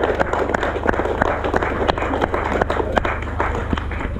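Small crowd applauding: a steady patter of many hand claps.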